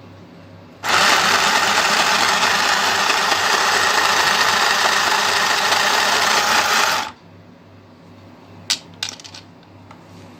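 Mini electric sewing machine running for about six seconds, a dense, even mechanical rattle of its motor and needle drive, stitching cloth now that its bobbin hook timing has been reset. It stops abruptly, and a sharp click follows, then a few small clicks.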